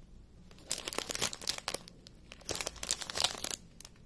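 Clear plastic bags of diamond-painting rhinestones crinkling as they are handled and turned over, in two bouts of about a second each, with small crackles.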